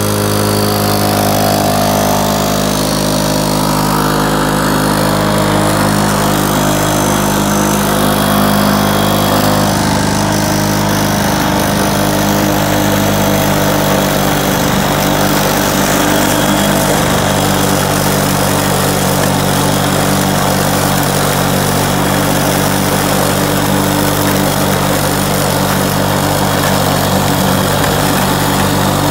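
Walk-behind gas lawn mower engine running steadily while being pushed over leaf-covered grass, with a few brief dips in engine speed partway through.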